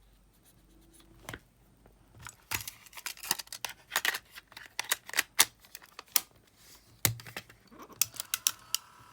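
Irregular small clicks and scratching strokes of hands and a tool working on the open Sony Walkman FX77 cassette mechanism during the cleaning of its tape head. A faint steady tone comes in near the end.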